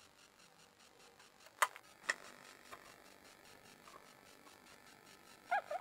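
Two sharp wooden knocks about half a second apart, like a timber block or tool being set down on a wooden workbench, then a short wavering squeak near the end.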